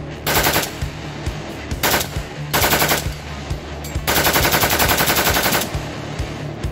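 Galil rifle firing full-auto in bursts: three short bursts in the first three seconds, then a longer burst of about a second and a half.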